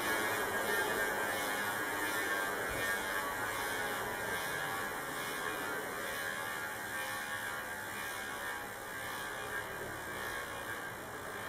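Chris King ISO rear hub freewheeling: the Ring Drive freehub's ratchet teeth click so fast that they merge into a high, continuous buzz, slowly getting quieter as the spinning wheel coasts down.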